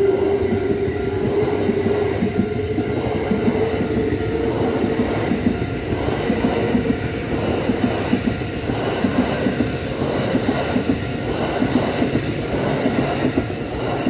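Kintetsu 8600 series and 1026 series electric train, ten cars, passing close by: wheels clattering in repeated pairs over rail joints as car after car goes past, with a whine rising slightly in pitch over the first few seconds. The sound dies away as the last car clears.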